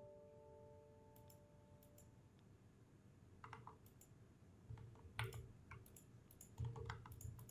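Faint, scattered computer mouse and keyboard clicks against near silence, some in quick pairs.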